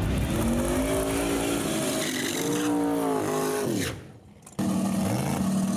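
Big-block Chevy V8 drag car engine revving hard, its pitch climbing, dipping and climbing again before cutting off about four seconds in; after a short break an engine comes back holding a steady high note.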